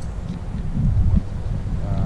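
Wind noise on the microphone: an uneven low rumble, with a voice starting right at the end.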